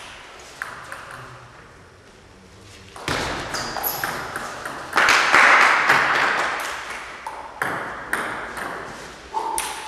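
Table tennis rally: the celluloid ball clicks sharply off paddles and table in quick succession, each hit ringing in a large echoing gym hall. The rally starts about three seconds in, and a louder noisy rush comes about five seconds in.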